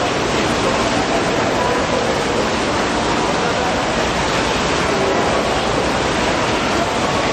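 Steady rush of running water, with faint voices underneath.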